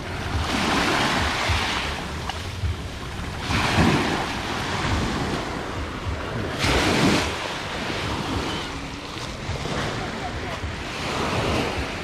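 Small sea waves breaking and washing up a pebble shore, four surges of foamy hiss with the second the loudest, over a low rumble of wind on the microphone.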